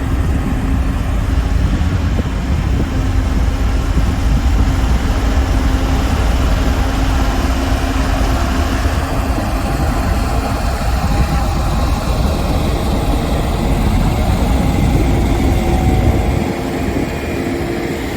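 Caterpillar D5G XL crawler dozer's diesel engine running steadily while pushing soil. About sixteen seconds in, the deep low end drops away and the engine eases off.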